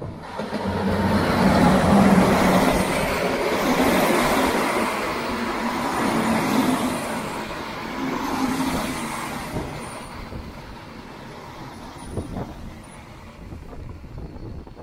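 A diesel train passing close by, loudest about two seconds in, then slowly fading away over the following seconds.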